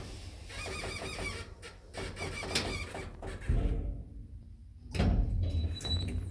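New ELM lift squeaking repeatedly as it runs, short wavering squeals. A low rumble takes over past the middle, with a heavy thud about five seconds in.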